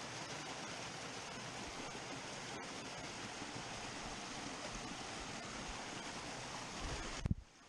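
Steady rushing of a small waterfall pouring over rocks into a pool. Near the end, low thumps and one sharp knock, after which the sound cuts out briefly.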